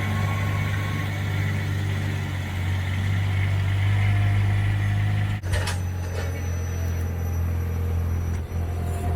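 An engine running steadily with a low, even hum. It breaks off sharply about five seconds in and picks up again at once.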